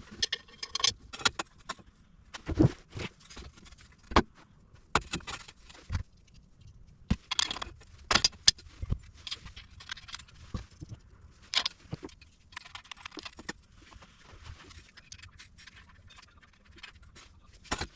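Metal hand tools and bolts clinking and scraping against the exhaust pipe flange as its bolts are fitted. The sounds are irregular sharp clicks and short metallic rattles with pauses between them.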